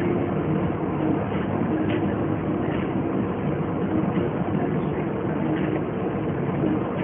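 Alfa Romeo 145 1.6 with its boxer engine cruising: a steady mix of engine hum and tyre and road noise heard from inside the cabin.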